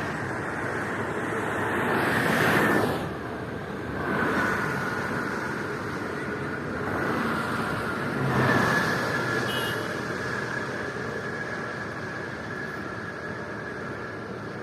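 Vehicles passing at speed on a toll highway, their tyre and engine noise swelling and fading as each goes by over a steady traffic hum. The loudest passes come about two and a half and eight and a half seconds in.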